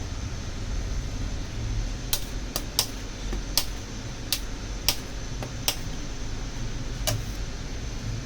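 About nine sharp, irregular clicks and taps, most of them between two and six seconds in and one near seven seconds, over a steady low hum.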